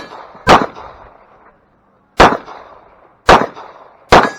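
Four Glock pistol shots fired on a match stage: one about half a second in, then after a pause of well over a second, three more about a second apart.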